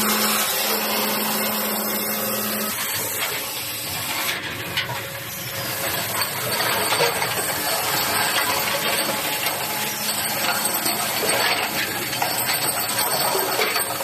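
CNC automatic circular saw and chamfering machine line running: steady machine noise with a hiss. A low hum stops about three seconds in, and faint clicks come and go.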